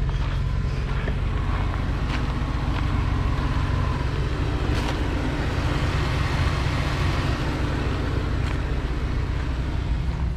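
Jeep Wrangler engine running at low speed as the front tyre crawls up onto a tree stump, a steady low drone with a few light knocks.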